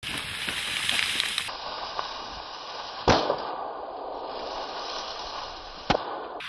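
Two gunshots from a hunter's long gun, fired at a wild boar in a reed bed, about three seconds apart; the first, about three seconds in, is the louder.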